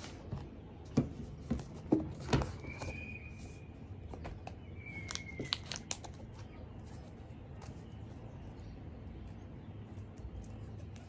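An iPad's cardboard box being opened by hand: a few knocks and taps on the box, two short squeaks as the lid slides off, then light clicks and rustles as the tablet is lifted out of its packaging.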